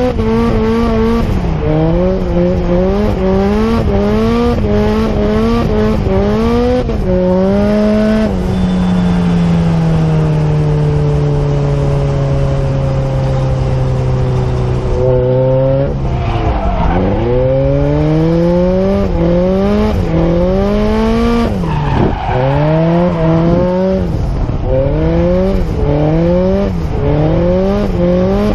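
Drift car's engine revving hard, the revs climbing and dropping back again and again, with tyre squeal from the slide. About eight seconds in the revs fall away slowly and stay low for several seconds before climbing again.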